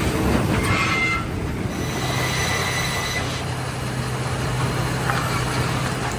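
Heavy machinery running with a steady low hum and loud noise, with thin high metallic squeals about a second in, through the middle, and again about five seconds in.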